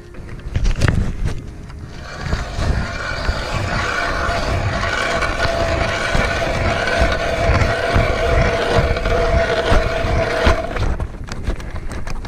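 Hand-cranked ice auger drilling through lake ice: after a couple of knocks, its blades cut with a steady grinding and a held pitched whine, which stops about eleven seconds in.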